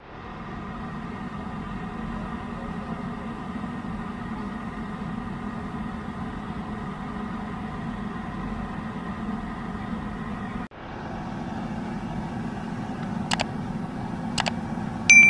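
A steady engine-like drone with a faint hum, briefly broken about two-thirds of the way through. A couple of sharp clicks come near the end, then a short, loud, shrill beep.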